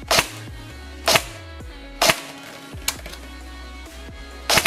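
Tokyo Marui P90+ airsoft electric gun firing four single semi-automatic shots, each a sharp crack, roughly a second apart, the fourth one fainter; near the end a rapid full-auto burst begins. Background music plays underneath.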